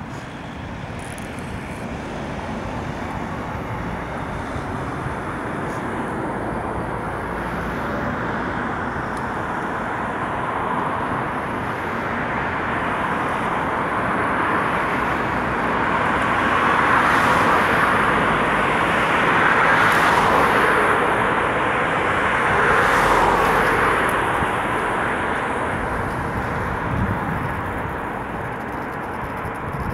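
Broad rushing engine and vehicle noise that builds slowly, peaks about two-thirds of the way through and fades again.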